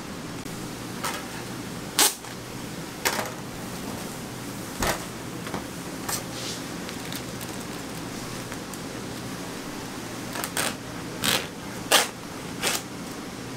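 Clear plastic film crackling and rustling in about a dozen short bursts as it is pulled from a roll, smoothed and cut with a knife on a stainless steel worktable. A steady low hum runs underneath.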